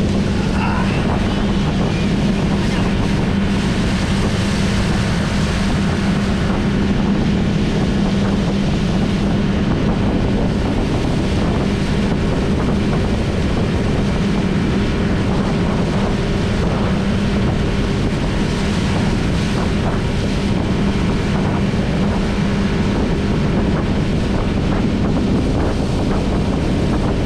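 Speedboat outboard motor running steadily at speed, a constant hum under water rushing past the hull. Heavy wind buffets the microphone.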